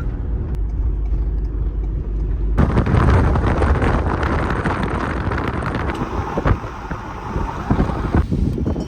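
Campervan driving: steady engine and road rumble, which turns abruptly into louder wind and road noise about two and a half seconds in.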